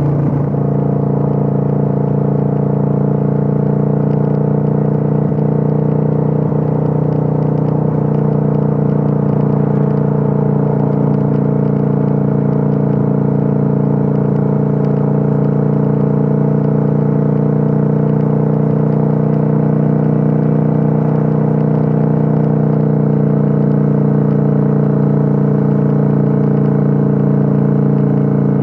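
Kawasaki Vulcan 900's V-twin engine and exhaust heard from on board while cruising, running steadily at a nearly constant engine speed with only slight, slow rises and dips in pitch.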